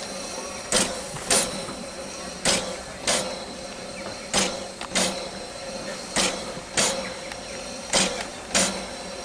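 Narrow-gauge steam locomotive Gelert puffing steam in regular pairs of sharp chuffs, the two of each pair about half a second apart and a new pair roughly every two seconds, over a steady background hiss.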